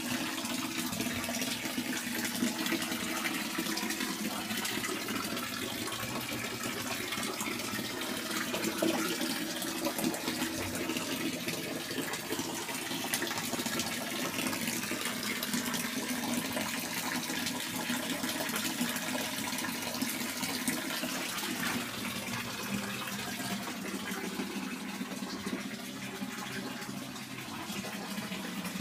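Water running steadily from the spout of an old stone village fountain (çeşme), an unbroken splashing rush.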